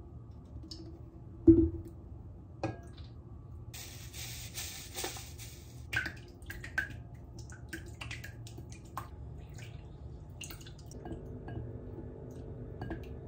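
Kitchen work sounds. A sharp knock with a short ring comes about a second and a half in, and a hiss of about two seconds follows near the four-second mark. Small clicks and clinks run on after that, and a steady hum starts near the end.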